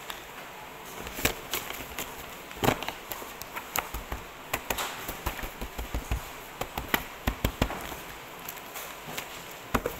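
A thick stack of paper being handled: knocked and tapped against a desk to square its edges and riffled, giving a string of irregular taps and knocks with paper rustling between them.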